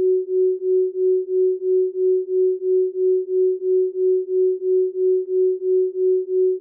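Isochronic tone: a single pure tone pulsing on and off evenly, about three pulses a second.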